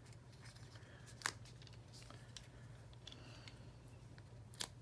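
Faint handling of a small cardstock piece with foam adhesive dimensionals on its back, with two light clicks, about a second in and near the end, over a low steady hum.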